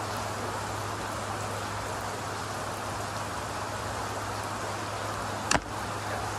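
Steady rain falling, with a low steady hum beneath it. One sharp click about five and a half seconds in.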